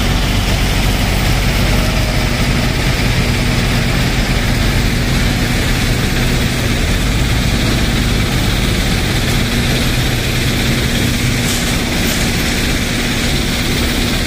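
JCB 3DX backhoe loader's diesel engine running steadily under load while it carries and lifts sand in its front bucket, a loud, even engine sound with no change in revs.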